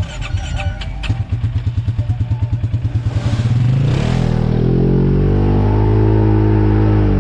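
ATV engine running with an even putter that quickens, then revving up about four seconds in and held at high revs.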